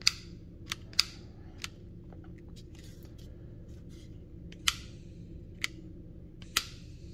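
Sharp plastic clicks from the ignition switch of a Snap-on butane soldering iron being flicked to light it. There are about seven clicks at irregular intervals.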